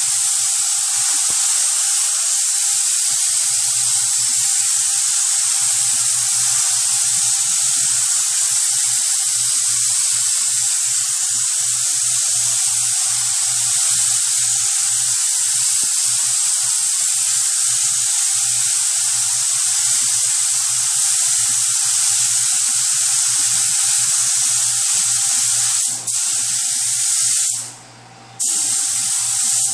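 Automotive paint spray gun spraying clear coat onto a truck's quarter panel: a steady hiss of atomising air with a thin steady whistle, cut off briefly twice near the end as the trigger is released between passes.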